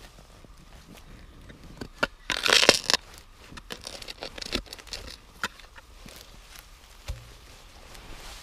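Spade digging into soil and roots: a loud tearing scrape a little over two seconds in as the blade cuts and lifts the earth, then soil crumbling and a few short knocks.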